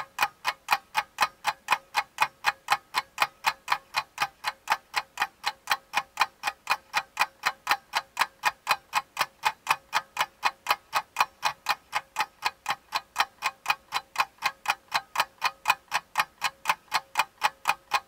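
Clock-ticking sound effect laid over the footage: even, sharp ticks at about three a second, going on steadily.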